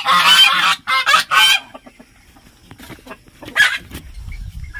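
Domestic geese honking loudly: a run of harsh calls in the first second and a half, then one more about three and a half seconds in.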